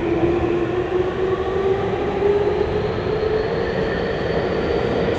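Interior running sound of a Minatomirai Railway Y500-series electric train picking up speed in a tunnel: the traction motor whine climbs slowly and steadily in pitch over the steady rumble of wheels on rail.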